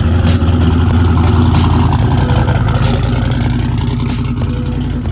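The twin-turbo Chevrolet Silverado's engine idling steadily with a deep, even rumble, easing off slightly toward the end.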